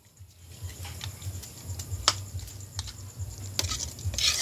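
Metal spatula clicking and scraping against a wok while food is stirred: scattered sharp clicks, then a louder scrape near the end, over a low rumble.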